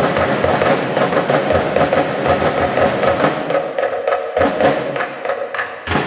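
Fast, rhythmic percussion music of many sharp drum strikes. It thins out about halfway through and stops on a final hit near the end.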